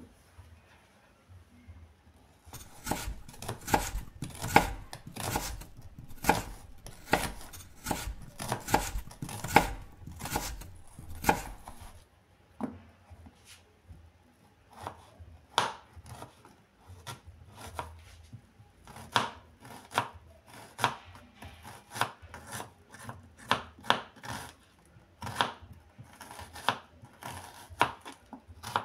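Kitchen knife slicing a red onion on a plastic cutting board: sharp taps of the blade on the board, starting a couple of seconds in. A fast run of cuts is followed by a short pause, then slower, uneven cuts.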